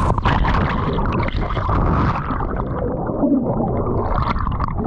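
Water gurgling and sloshing, a dense, irregular run of splashy noise.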